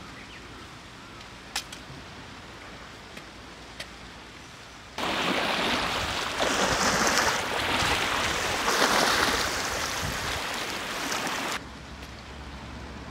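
Seawater sloshing and lapping against a concrete harbor seawall, starting suddenly about five seconds in, swelling twice, and cutting off suddenly shortly before the end. Before it, only faint outdoor ambience with a few small clicks.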